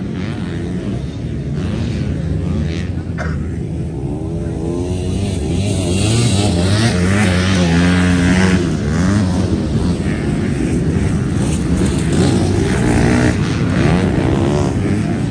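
MX2-class motocross bike engines revving up and down as the bikes race around the track, with several engines overlapping and growing louder about halfway through.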